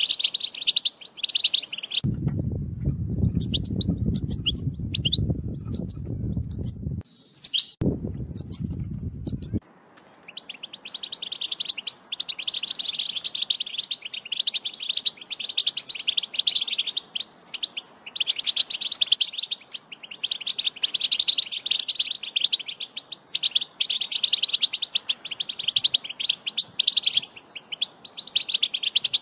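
European goldfinch song: a fast, continuous high twittering in long phrases with short breaks. For several seconds near the start the song gives way to a low rumbling noise with only a few scattered calls, then the twittering resumes.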